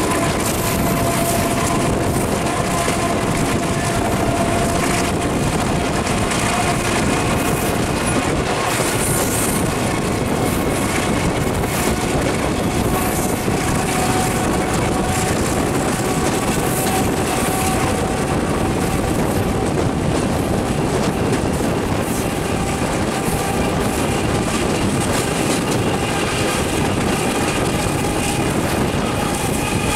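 Diesel locomotive running steadily along the line, heard from its side walkway: a continuous mix of engine noise and wheels rolling on the rails, with some clickety-clack over the rail joints.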